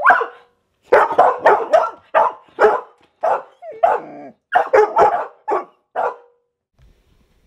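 A dog barking repeatedly, about a dozen loud barks in quick runs, stopping about six seconds in.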